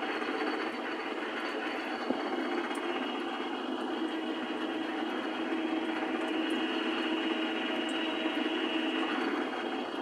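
Metal lathe drilling a bore into a spinning spacer blank with a large twist drill under flood coolant: steady motor and cutting noise, with a hum that grows stronger about four seconds in and one sharp tick about two seconds in.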